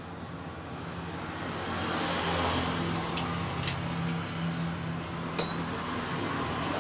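Steady hum of vehicle traffic going by, swelling a little about two seconds in, with three short, sharp metallic clicks in the second half as the motorcycle rear shock and its coil spring are handled.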